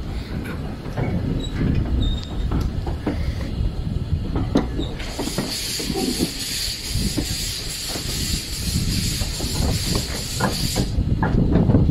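Steam locomotive on the move, heard from its footplate: a steady rumble of wheels and running gear with irregular knocks. About five seconds in, a loud hiss of escaping steam starts, lasts about six seconds and cuts off suddenly.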